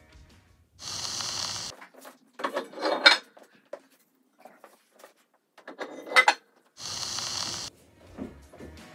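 Edited retro video-transition sound effect: two short bursts of static hiss about six seconds apart, with two loud, sharp clattering sounds between them at about three and six seconds in.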